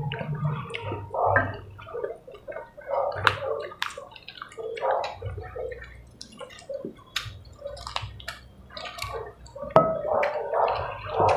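Close-up wet chewing and lip-smacking of people eating chicken and rice by hand, with irregular smacks and small clicks and a louder smack near the end.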